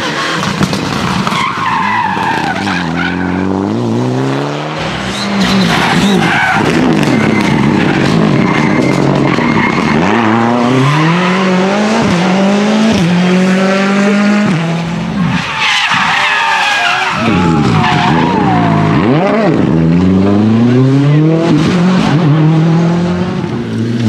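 Rally cars driven flat out, one pass after another. Engines rev up steeply through the gears with quick shifts, over tyres skidding on the loose road surface.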